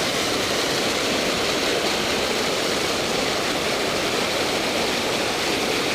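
Steady rush of creek water pouring over a small spillway waterfall.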